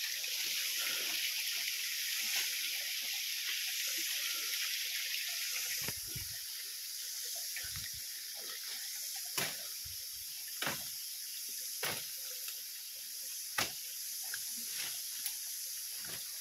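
Steady hiss of flowing water, with footsteps through the undergrowth: a few low thuds, then several sharp snaps of twigs and stems in the second half.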